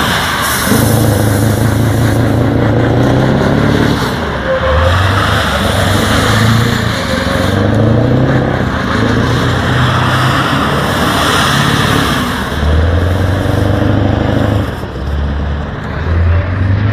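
Scania R730's V8 diesel truck engine running loud and revving up and down several times as the tractor unit circles.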